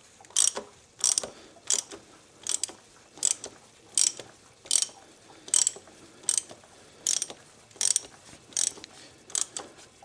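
Ratchet wrench with a 32 mm socket, swung back and forth to screw down an oil filter housing cap by hand, clicking in short bursts at about one every three-quarters of a second.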